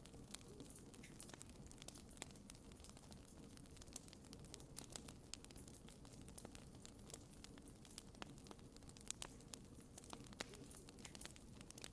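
Faint crackling of a wood campfire: irregular sharp snaps and pops from the burning logs over a low steady rustle of the flames.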